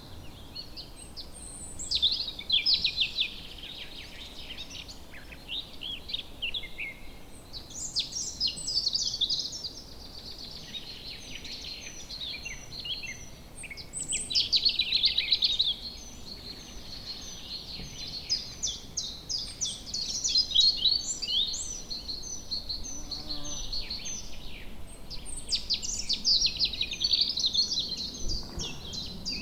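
Several songbirds singing together in woodland: overlapping rapid trills and chirps, with a repeated short high note running through, over a faint steady background hiss.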